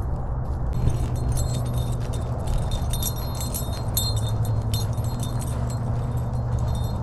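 Light metallic jingling and tinkling, irregular and scattered, over a steady low hum.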